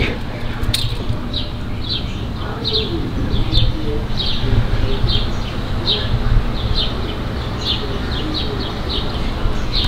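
A bird chirping over and over, short high chirps about one or two a second, over a low steady rumble.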